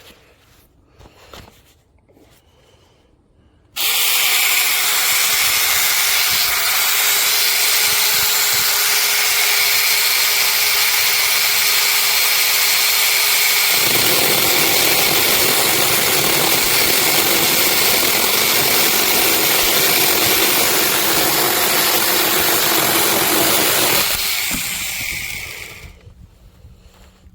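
Cordless 6-inch mini chainsaw running loud and steady after a sudden start a few seconds in. Its note drops about ten seconds later. It cuts off near the end and winds down over a couple of seconds.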